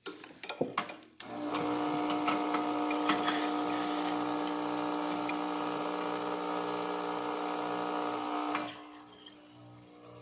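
A few clicks, then a Rancilio Silvia espresso machine's vibratory pump hums steadily with a hiss of water for about seven seconds while it dispenses hot water, cutting off sharply near the end.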